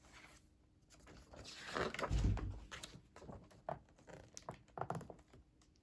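Paper rustling with a soft thump, then a few small clicks and taps: a picture book's page being turned and handled.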